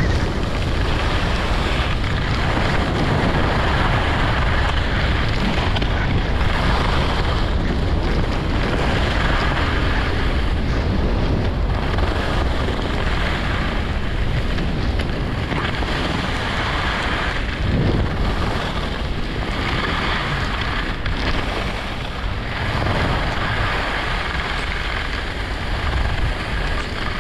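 Wind buffeting the microphone of a skier's action camera, over the hiss and scrape of skis carving on groomed snow, swelling with each turn about once a second.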